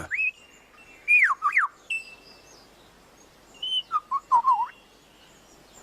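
Superb lyrebird calling loud whistled notes that sweep in pitch. There is a rising-and-falling whistle at the start, two quick downward-sliding whistles about a second in, and a rapid run of short falling notes around four seconds in. These are part of its song of mimicked calls.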